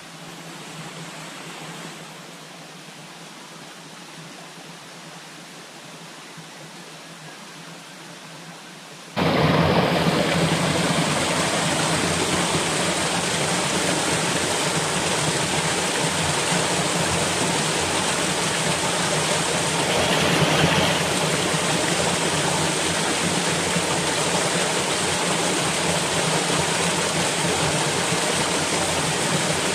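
A quiet steady hiss, then, about nine seconds in, a waterfall's loud, steady rush of falling water that cuts in abruptly and continues unbroken.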